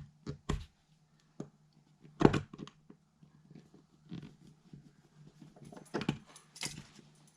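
Scattered scrapes, clicks and knocks of a screwdriver forcing its way into a paint-clogged outlet fitting, with the loudest knock a little past two seconds in. A steady low hum runs underneath.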